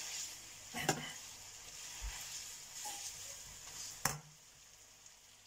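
Pasta and vegetables sizzling in a stainless frying pan while a slotted metal spatula stirs and tosses them. The spatula knocks sharply against the pan about a second in and again about four seconds in, and the sizzle quietens after the second knock.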